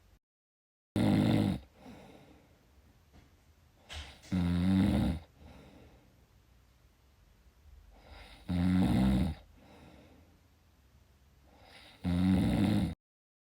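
Snoring: four loud, low buzzing snores about three and a half seconds apart, with faint breathing between them. The sound cuts to dead silence briefly just after the start and again near the end.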